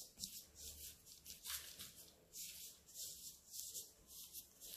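Faint, irregular soft rustles and swishes of hands pressing and pushing soft brioche dough out over a sheet of baking paper.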